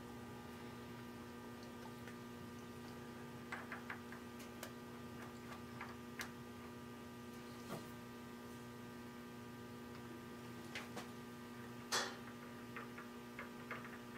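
Steady electrical hum in the shop, made of several constant tones, with scattered faint clicks and taps of metal tools being handled at the milling machine. The sharpest click comes about twelve seconds in.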